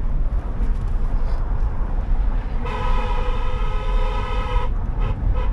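A vehicle horn sounds one long held honk of about two seconds near the middle, over the steady rumble of a vehicle driving on a rough road.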